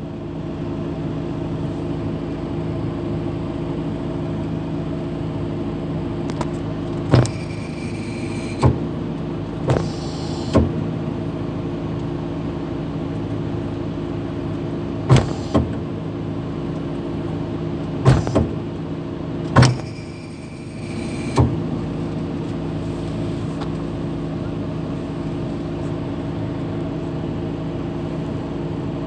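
A mobile crane's engine runs steadily, with about nine sharp knocks at irregular intervals through the middle of the stretch: hammer blows driving out the pin that holds the tower crane's counterweight jib. The engine note dips briefly about two-thirds of the way through.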